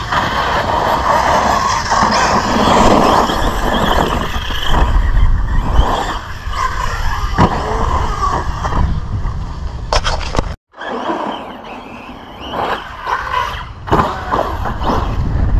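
Brushless electric RC monster truck (Arrma Big Rock 6S) driving hard and sliding on loose dirt, with heavy wind noise on the microphone. The sound cuts out completely for a moment about ten and a half seconds in.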